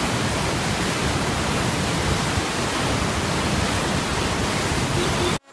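Floodwater rushing through open dam spillway gates into a churning torrent: a loud, steady rushing noise that cuts off suddenly near the end.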